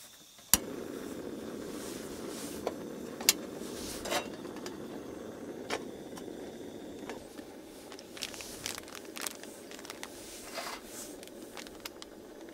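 A single-burner cartridge gas camping stove lit with its piezo igniter: one sharp click about half a second in, then the burner's steady low roar. Over it come scattered clicks and crinkles of a foil coffee drip-bag packet being handled.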